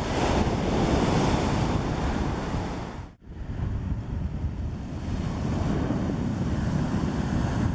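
Sea surf breaking and washing up a pebble beach, with wind buffeting the microphone. The sound cuts out briefly about three seconds in.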